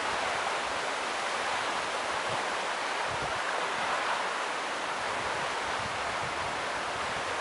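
Steady strong wind rushing through tree leaves, with low bumps of wind hitting the microphone now and then.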